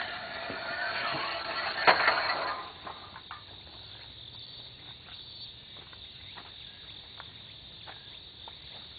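A metal pipe rail being slid, scraping with a squeal and ending in a sharp clank about two seconds in. After that, a steady high chorus of insects with scattered light knocks.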